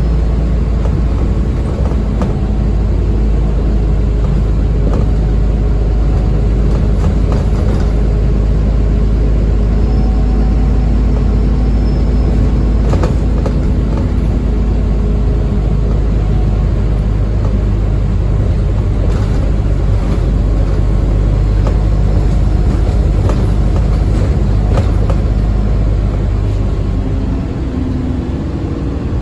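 Alexander Dennis Enviro400 Trident double-decker bus under way, its engine making a steady low drone, with occasional sharp knocks and rattles. Near the end the engine note shifts.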